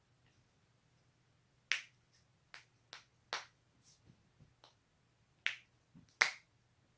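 Joints cracking: about a dozen sharp, irregular pops, the loudest near two seconds in and again just after six seconds.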